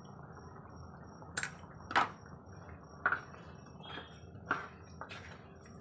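A spatula stirring chickpea curry in a nonstick kadai, scraping and knocking against the pan about seven times at uneven intervals.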